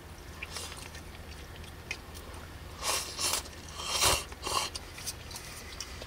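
Someone eating soba noodles: several short slurps, the loudest a little past the middle, with quieter chewing and eating sounds around them.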